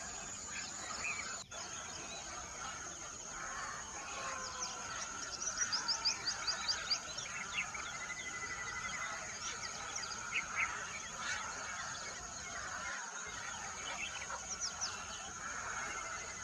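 Several small birds chirping and trilling over a steady high insect drone, with a fast run of high chirps a few seconds in.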